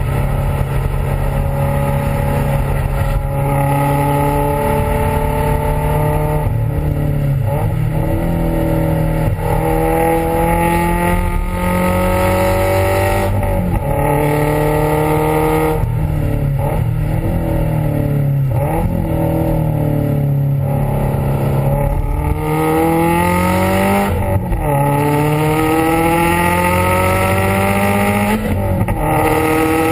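Subaru WRX STI's turbocharged flat-four heard close at the exhaust tailpipe under hard acceleration on track. The exhaust note climbs in pitch again and again, broken off by each gear change or lift and climbing once more.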